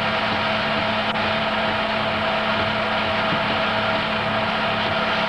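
Home-movie film projector running: steady motor and fan hum with a hiss, unchanging throughout, as the reel runs out to a blank white frame.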